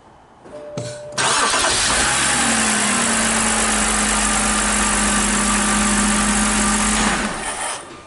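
BMW inline-six engine cranking and starting about a second in, then running steadily at idle until it stops about seven seconds in. The engine has an intermittent rough-running misfire that the technician suspects is an ignition coil problem.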